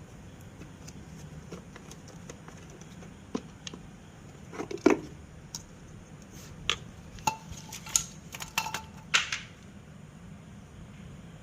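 Metal hand tools clinking and clattering as they are handled: a dozen or so sharp clinks, a few ringing briefly, loudest about five seconds in.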